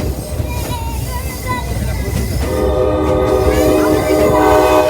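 Locomotive horn sounding a steady chord of several notes, coming in about halfway through and holding, over the continuous low rumble of the train running on the rails, heard from an open-air car.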